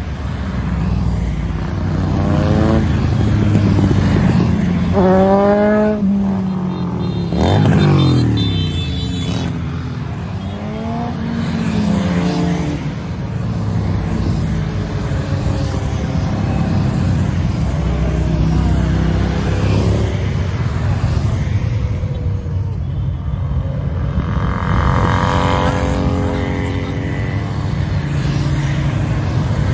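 Motorcycles of mixed types, sport bikes and cruisers, riding past one after another, their engines running continuously. Riders accelerate with rising engine pitch a few seconds in and again about 25 seconds in, and one bike passing close drops in pitch around 8 seconds in.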